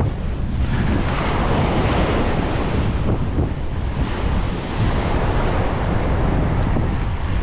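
Strong wind rumbling on the microphone over the steady wash of surf breaking on the beach.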